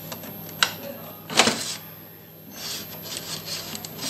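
Plastic parts of a Xerox colour copier's cleaning assembly clicking and scraping as the unit is pulled out by hand. There is a sharp click about half a second in and a louder scrape about a second later, then softer rubbing and small rattles.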